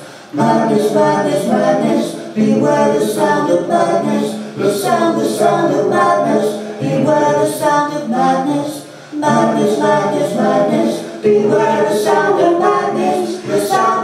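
Voices singing a cappella, with no instruments, in repeated phrases about two seconds long, each followed by a brief break.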